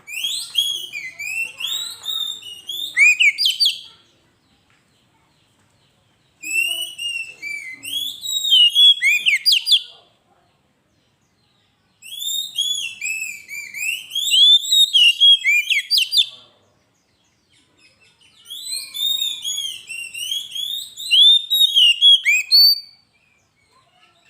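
Oriental magpie-robin (kacer) singing loudly in full song. It gives four bursts of about four seconds each, made of rapid, varied whistled notes that rise and fall, with short silent pauses between them.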